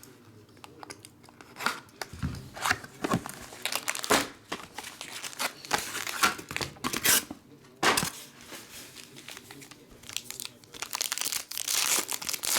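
Hockey card packs being torn open by hand, with the wrappers crinkling and rustling in irregular bursts that grow busiest near the end.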